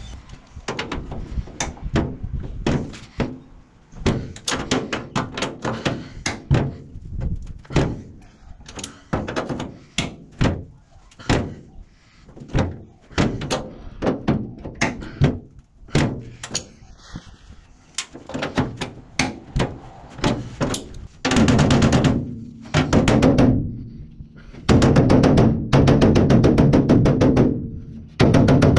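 Hammer blows on the splayed front lip of a steel cabinet, bending it back down: irregular knocks, about one or two a second, growing louder and denser in the last third.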